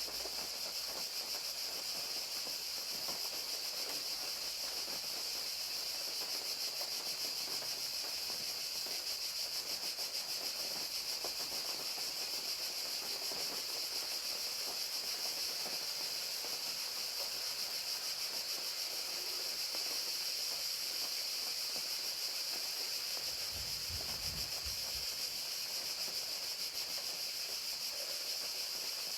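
A steady chorus of crickets with rain falling, with a constant high chirring over a fine patter. About five seconds before the end there is a brief low rumble.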